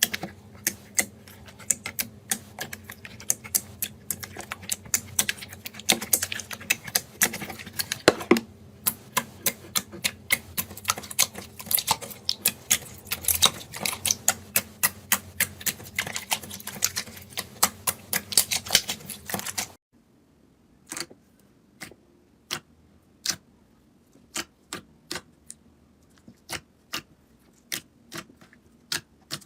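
A rapid, irregular series of sharp clicks or taps over a steady hum. About twenty seconds in, the hum stops and the clicks come more sparsely.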